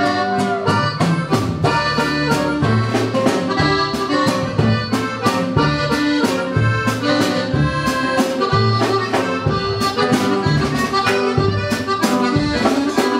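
Norteño band music in an instrumental break: a Gabbanelli button accordion carries the melody over a bass line and a steady drum beat.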